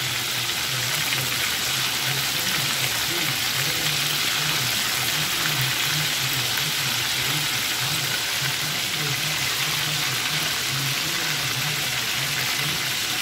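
Chicken pieces shallow-frying in hot oil in an enamelled cast-iron pot: a steady, even sizzle.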